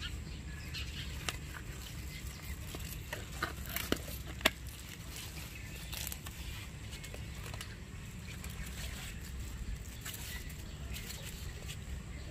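Leaves rustling and crisp snaps as bok choy is cut from its pots with a knife, over a steady low outdoor rumble; a cluster of sharper snaps comes between about three and four and a half seconds in.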